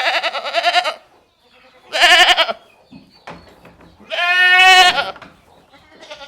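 A farm animal bleating three times: high, quavering calls about two seconds apart, the third the longest.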